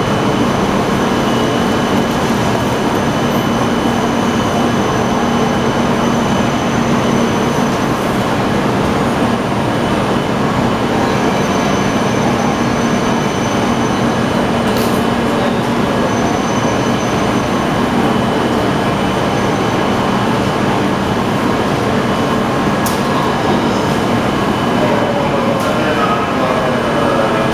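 Running noise heard inside an electric passenger train car: a steady rumble of wheels on rails with a constant low hum.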